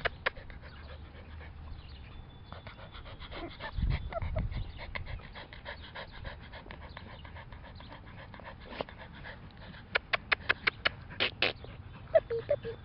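Five-week-old Norwich Terrier puppy panting while mouthing grass, with sharp clicks throughout and a fast run of loud clicks about ten seconds in. A couple of short squeaks near the end.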